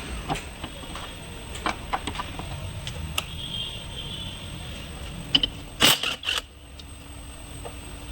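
Scattered metallic clicks and knocks of hand tools and parts during car suspension work, with two short, loud bursts about six seconds in.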